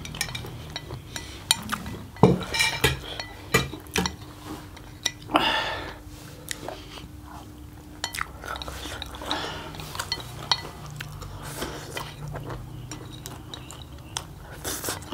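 Chopsticks clicking and scraping against ceramic plates while noodles are eaten, in many short irregular clinks, the loudest cluster a couple of seconds in.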